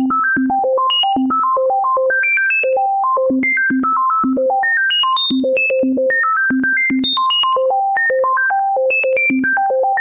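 Fast run of short synthesizer notes, about six a second, jumping irregularly between low and very high pitches with one low note recurring often: the prime numbers sonified as a melody.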